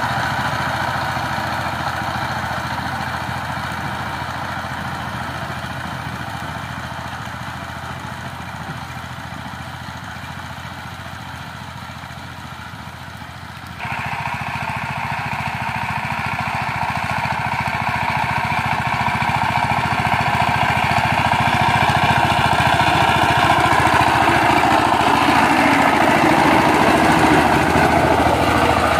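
Single-cylinder diesel engine of a two-wheel power tiller running steadily under load while it tills the soil. It fades gradually, jumps abruptly louder about halfway through, then grows steadily louder.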